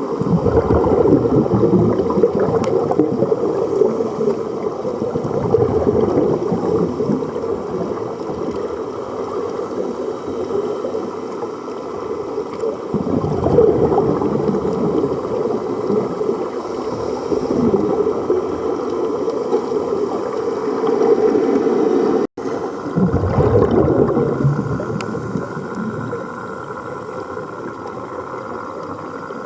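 Muffled gurgling and rushing water recorded underwater, swelling and fading every few seconds, with a brief cut about two-thirds of the way through.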